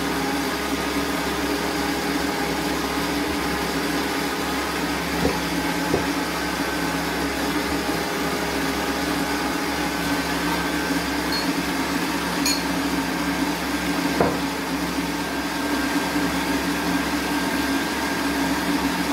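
Electric stand mixer running steadily on low speed, beating a fruit cake batter, with a few light knocks along the way.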